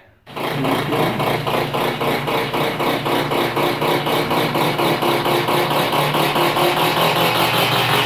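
Top-load washer of a stackable washer-dryer starts abruptly and runs with a loud, fast, rhythmic racket, a thrashing clatter. The noise comes from broken spot welds that let the transmission and motor assembly hang sideways and vibrate.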